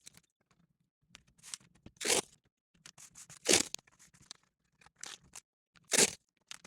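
Tape being pulled off a roll and torn for a keyboard tape mod: three loud short rips about two, three and a half and six seconds in, with smaller crinkles and taps between.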